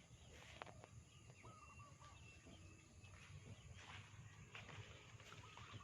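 Faint, distant birds calling in short chirps a few times over quiet outdoor background, with a single click about half a second in.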